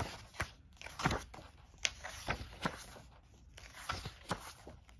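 Pages of a printed rulebook being flipped quickly by hand: a string of short paper flicks and swishes, some sharper than others.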